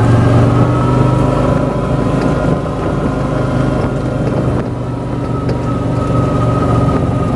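ATV engine running steadily while the quad drives through a field, with a thin whine above the engine note. The engine eases off a little about halfway through, then picks up again.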